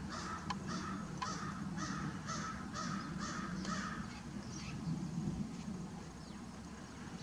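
A bird calling in a quick run of about nine short calls, roughly two a second, over the first four seconds, with a faint steady low hum underneath.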